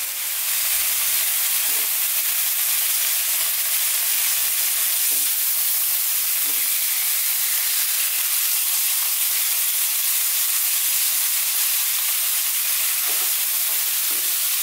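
Two beef steaks sizzling steadily in a hot grill pan in olive oil and melting butter with garlic cloves: a constant high hiss of frying.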